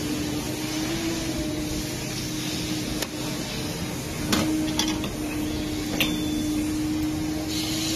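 Battery-powered capacitor-discharge pin welder firing cup-head insulation pins through fiberglass insulation into sheet metal: four sharp snaps a second or so apart, the loudest a little past four seconds in, over a steady hum.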